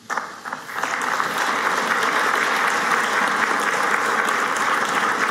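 Audience applauding: a few first claps come suddenly, then within about a second they swell into full, steady applause.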